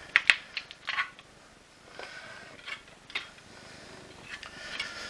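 Hard plastic housing parts of a cordless vacuum floor head clicking, knocking and creaking as they are handled and pulled apart. A quick cluster of sharp clicks comes in the first second, then scattered knocks.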